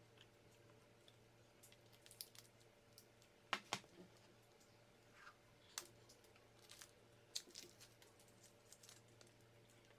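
Faint scattered clicks and crackles of a plastic honeycomb package being handled and its stubborn wrapper peeled, with a sharper double click about three and a half seconds in.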